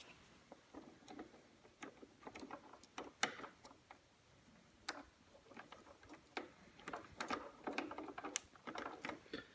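Faint, irregular light clicks and taps of hands handling the plastic parts and wiring of a kids' electric ride-on ATV during reassembly, coming more thickly near the end.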